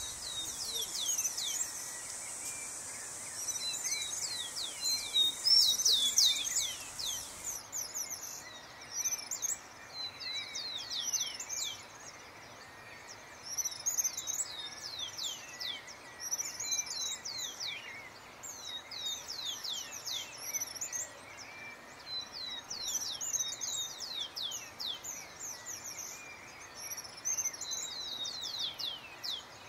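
Birdsong: bouts of high, quickly falling whistled notes, a bout every two or three seconds. A steady high hiss under the song cuts off sharply about seven seconds in.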